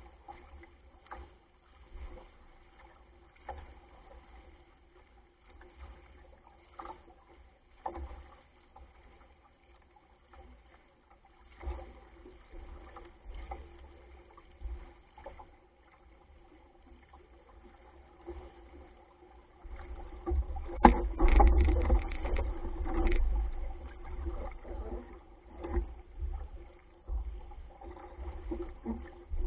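Wind buffeting the microphone and water rushing and splashing along the hull of a small sailing dinghy under way. About two-thirds of the way through it turns louder and gustier, with a short run of knocks and splashes.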